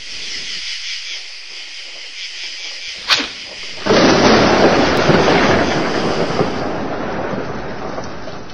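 Thunder: a steady high hiss, then a sharp crack about three seconds in, followed by a long loud rumble that slowly fades away.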